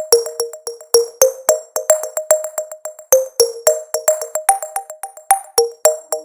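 Background electronic music: a quick run of short, sharp synthesizer notes over a steady beat.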